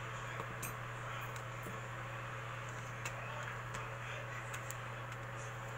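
Steady low hum and hiss, with a few faint clicks and taps as a smartphone's replacement screen and frame are handled and pressed together.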